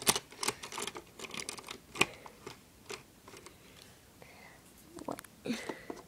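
Irregular clicks and taps of plastic Lego pieces being handled, with the sharpest click about two seconds in.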